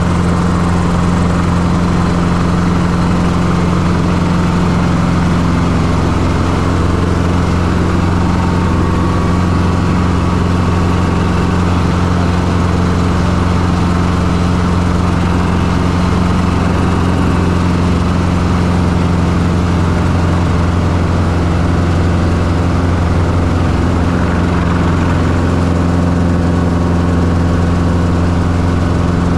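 Schweizer 269C-1 helicopter's four-cylinder Lycoming piston engine and rotors running steadily, heard from the open cockpit as a loud, even low hum with no change in pitch.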